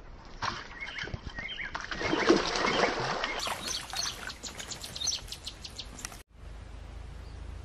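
A hooked small rohu thrashing and splashing at the water's surface as it is reeled in on a rod, loudest about two to three seconds in, then a quick run of sharp slaps and spatters. The sound cuts off suddenly just after six seconds, leaving a steady low background.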